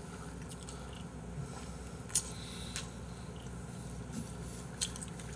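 Faint chewing and mouth sounds of someone eating, with a couple of small clicks, over a steady low room hum.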